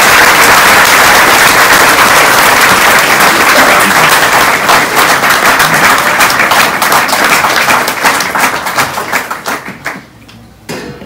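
Audience applauding, loud and dense, then thinning to scattered claps and stopping about ten seconds in.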